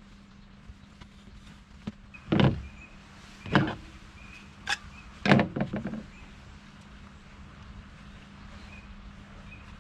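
Magnesium fire-starting rod scraped with a striker in several sharp strokes: two about a second apart, then a hard stroke followed by a quick run of short ones a couple of seconds later.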